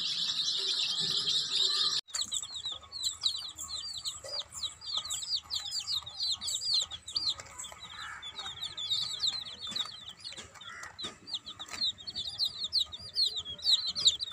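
A group of young chicks peeping non-stop, many short high chirps overlapping. The sound drops out for an instant about two seconds in.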